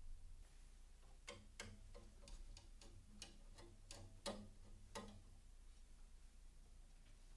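Faint, irregular clicks and taps of a small screwdriver against a metal screw and sensor bracket as the screw holding the embosser's front paper sensor is worked loose. There are about a dozen over some four seconds, with one louder click about four seconds in.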